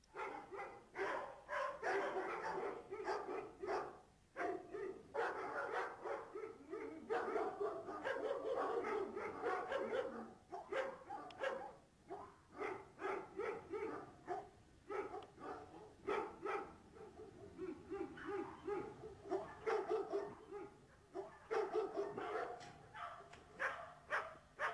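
Several Presa Canario dogs in a kennel barking together, a dense run of overlapping barks with short lulls.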